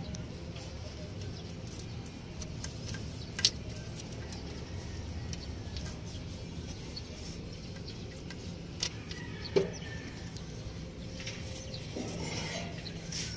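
Hand tools clinking against the metal of a backhoe's alternator mounting: a few scattered sharp metal clicks, two of them louder, over a steady low hum.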